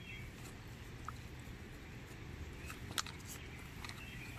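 Faint outdoor ambience: a low wind rumble on the microphone, faint bird chirps, and a few small sharp clicks, the loudest about three seconds in.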